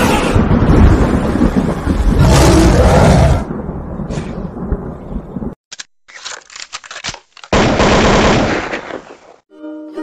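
Edited sound effects: a loud rumbling noise surges about two seconds in and fades out, then come a few sharp cracks and a burst of hissing noise. Plucked-string music starts near the end.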